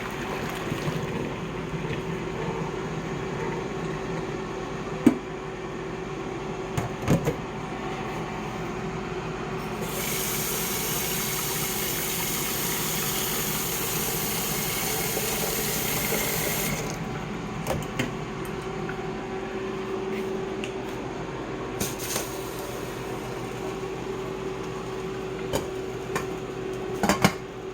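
Kitchen tap running into a cooking pot for about seven seconds, refilling it with fresh water after the beet cooking water has been poured off. A steady hum runs underneath, with a few clunks of the pot being handled.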